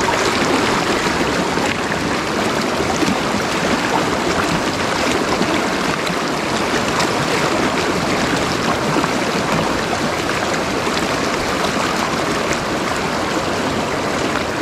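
Mountain river water rushing over rocks: a steady, fairly loud flow.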